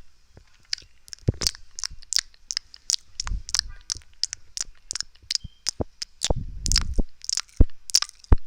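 Close-miked mouth sounds: a quick run of wet clicks and smacks of tongue and lips, about three or four a second. Twice, around three seconds in and again near the end, low muffled rumbles sound under the clicks.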